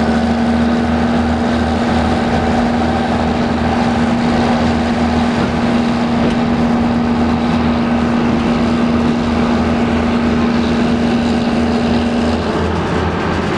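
Narrow-gauge diesel switcher locomotive's engine running loud and steady while it slowly shoves a loaded flatcar, with a low throb under a steady drone that drops out about twelve seconds in.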